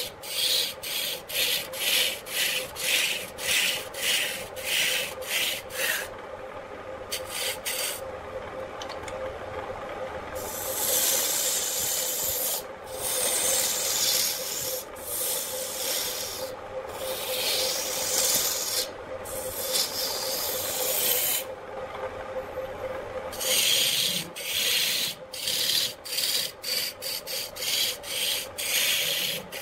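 Woodturning gouge cutting a spinning wooden blank on an electric lathe, with a scraping rush of shavings over the lathe's steady hum. The cuts come as short strokes about two a second at first and again near the end, with longer unbroken cuts in between.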